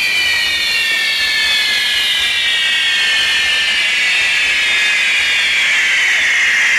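Whistling ground fireworks: several shrill whistles sounding together over a steady hiss, their pitch sliding slowly lower as the whistle charges burn down.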